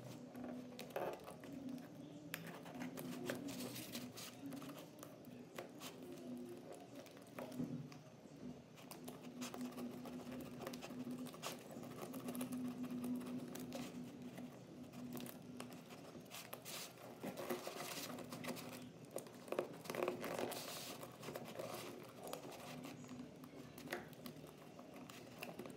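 Clear plastic wrap on a cardboard parcel crinkling and tearing as it is cut and pulled off, with many small clicks and rustles over a faint steady hum.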